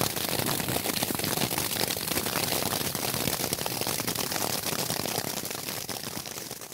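Rain pattering steadily overhead, a dense crackling hiss that fades out near the end.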